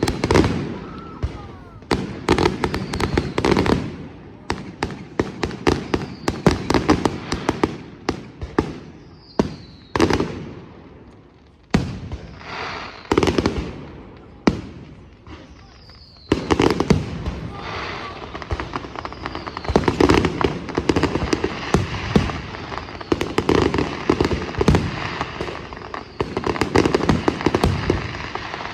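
Fireworks display: a rapid run of sharp bangs and crackling, with short falling whistles among them. The bangs thin out around the middle, then come back as a dense barrage for the second half.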